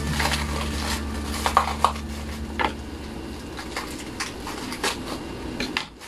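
Clear plastic packaging crinkling and rustling, with scattered sharp crackles and taps as a parcel of bottles is unwrapped by hand. Faint background music fades out in the first couple of seconds.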